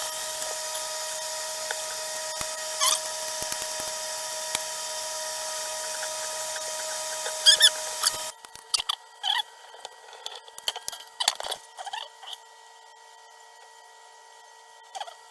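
A small electric motor runs with a steady whine and hiss, then switches off abruptly about eight seconds in. Scattered light clicks and squeaks follow.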